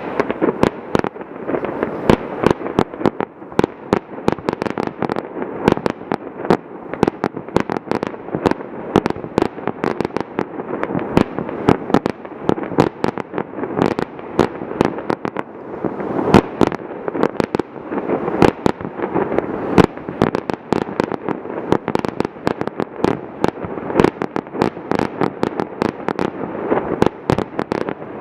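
Aerial fireworks bursting in quick succession: a dense, unbroken barrage of sharp bangs and pops, many each second, over a steady wash of echo.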